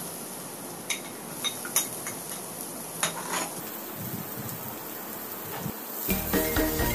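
Chopped garlic and onion sizzling in oil in a pan, with a few sharp clicks and scrapes of a plastic spatula stirring them. Background music comes in near the end, louder than the frying.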